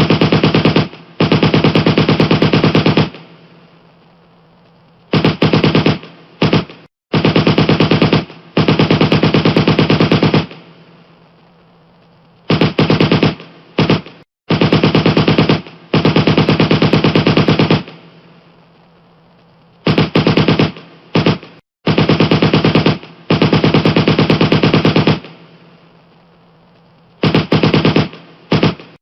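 Gunfire sound effect: rapid bursts of automatic fire, some a quick few shots and some lasting two to three seconds, each dying away in an echoing tail before the next burst.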